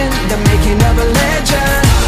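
Pop music with a steady drum beat and a melodic line over it.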